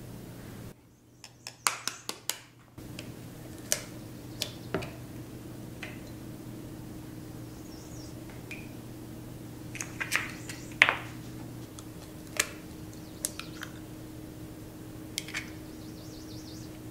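Scattered clicks and taps of kitchen utensils and bowls being handled, a few ringing briefly, over a faint steady hum.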